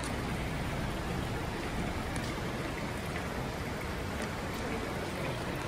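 Steady rush of water from a small rock waterfall spilling into a garden pond.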